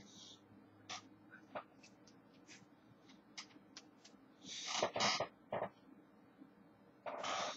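Hands and clothing making soft taps, claps and brushing noises while someone signs in sign language. There are two longer hissing rustles, one just before the middle and one near the end.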